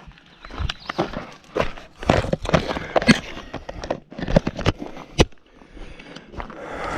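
Irregular knocks, clicks and clatter of someone moving about and handling tools, with no power tool running.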